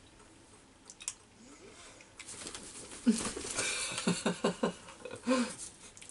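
Breathy laughter: a run of short, quickly repeated 'ha' pulses starting about three seconds in, with one more burst near the end.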